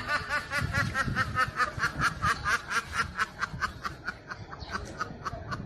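Rapid snickering laughter: a long run of short, high chuckles, about four to five a second.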